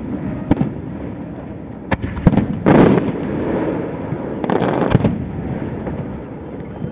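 Aerial firework shells bursting: several sharp bangs a second or so apart, with two longer, denser bursts, the loudest about two and a half to three seconds in and another around four and a half to five seconds in.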